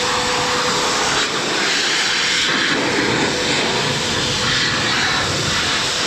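Heated car-drying blower running steadily, a loud rush of air blowing water off the car's paint.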